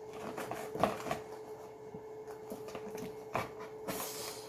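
Plastic toy packaging being handled and pried at, struggling to get the toy out: scattered clicks and knocks, with a short crinkly rustle about four seconds in. A steady low hum runs underneath.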